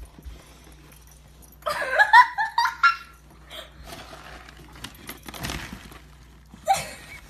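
A person laughing in a loud outburst about two seconds in and again briefly near the end, over faint rustling and clinking as a dog rummages through the plastic bag in a stainless steel trash can.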